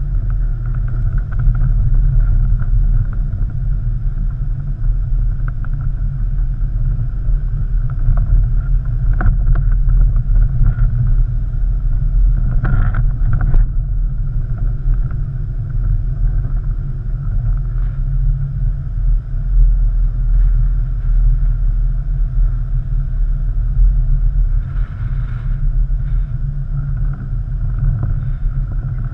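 Jeep Wrangler driving slowly over a rough dirt trail, heard from a microphone on its hood: a steady low rumble of engine, tyres and wind on the microphone, with a few short knocks and rattles.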